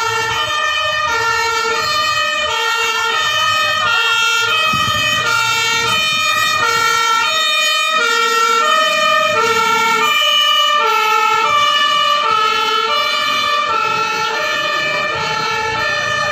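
Fire truck's two-tone siren sounding without a break, switching back and forth between a lower and a higher pitch in a steady rhythm.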